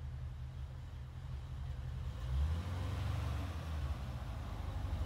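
Swapped-in LS3 6.2-litre V8 of a 1955 Chevy 3100 pickup, a low, pulsing exhaust rumble as the truck drives past. The engine note rises and grows louder a little over two seconds in as it picks up speed, and the rumble swells as the truck draws closer.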